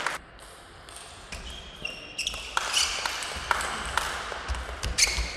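Table tennis ball clicking on the table and bats as play resumes: a quiet second, then a run of sharp, separate clicks, the loudest near the end.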